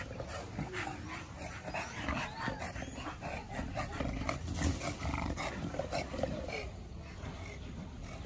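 A dog panting and snuffling hard close to the microphone, in quick breaths about three a second, easing off near the end.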